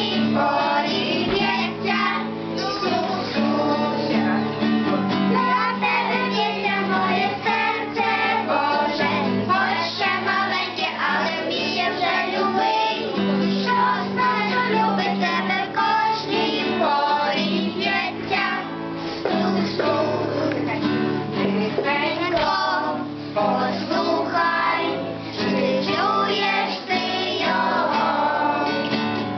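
A Ukrainian song: a sung vocal line over continuous backing music with guitar.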